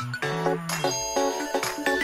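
Background music: an instrumental tune with a held bass line.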